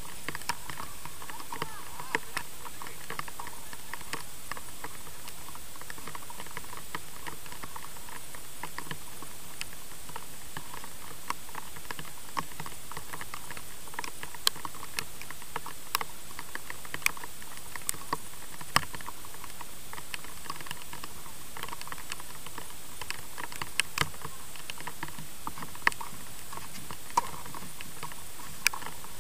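Tennis balls being struck by rackets and bouncing on a clay court: sharp, scattered pops every second or two over a steady hiss.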